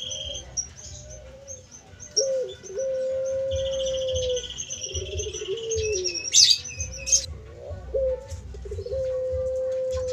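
Puter pelung dove (a long-cooing Barbary dove) cooing: a short dipping note followed by a long, level, drawn-out hoot held about two seconds, given twice. High rapid chirping trills from other caged birds sound in the background, with a brief clatter a little past halfway.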